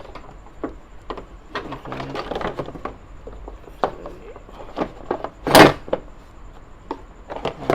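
Scattered clicks and knocks of hand work on a car's air-conditioning compressor and its wiring, with one loud clatter about five and a half seconds in.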